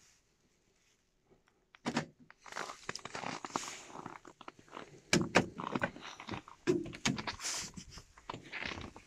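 Volkswagen Touareg's door locks unlatching with a thunk after a key-fob press, then crunching and rustling as the snow-covered driver's door handle is pulled, with several sharp clicks as the door opens.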